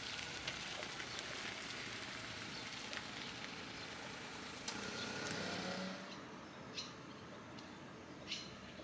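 Outdoor ambience: a steady hiss with scattered light ticks, and a short low hum about five seconds in. Then the hiss drops away and a small bird chirps a few times near the end.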